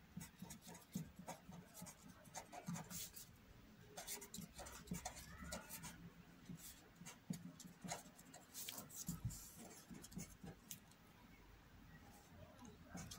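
Felt-tip marker writing a line of words: faint, irregular scratches and ticks as each stroke is drawn.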